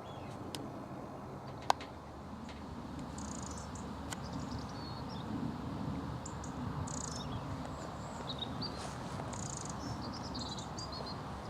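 Small birds giving short, high chirping calls, scattered over several seconds, above a steady low background rumble. A single sharp click sounds about two seconds in.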